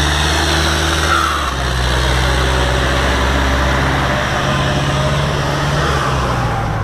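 Massey Ferguson 4275 tractor's turbocharged diesel engine running steadily. Its note shifts briefly about a second and a half in.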